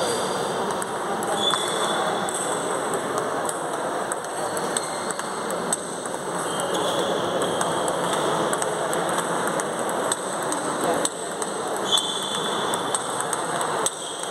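Dense, irregular clicking of table tennis balls striking bats and tables from many games played at once.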